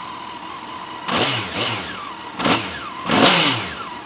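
2002 Honda CBR954RR's inline-four engine on its stock exhaust, idling and then blipped four times: quick revs up and back down, the last one longest and loudest. Sounds pretty good but a little quiet.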